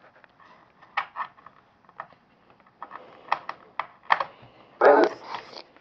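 Necrophonic ghost-box app on a tablet, playing choppy, rapid-fire fragments from its sound bank through the tablet's speaker: a scatter of short clicks and clipped snippets, then a louder, longer voice-like burst near the end.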